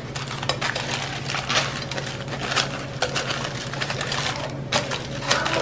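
Aluminium foil crinkling and crackling in quick irregular bursts as hands press and crimp it tight to seal a wrapped roast.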